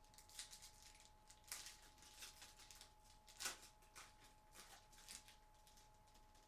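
Faint rustling and soft flicks of trading cards being slid and flipped by hand: several brief swishes, the loudest about three and a half seconds in.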